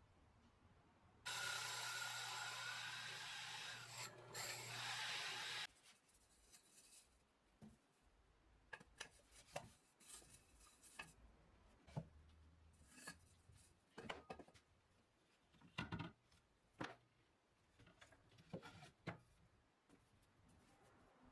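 A power tool runs for about four seconds, starting and stopping abruptly, followed by scattered light knocks and taps of workpieces and tools being handled.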